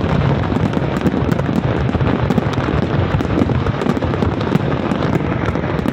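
Aerial fireworks in a dense barrage: many shells bursting at once, giving a continuous mass of bangs and crackling.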